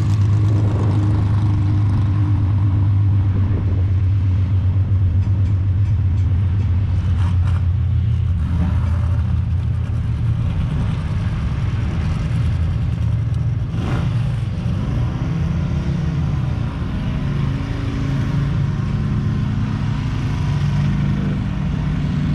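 Racing engines running steadily and loudly, with a sharp crack about fourteen seconds in and a brief rise and fall in engine pitch just after.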